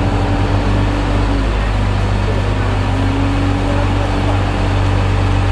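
Tour bus engine running with a steady low drone, heard from inside the passenger cabin.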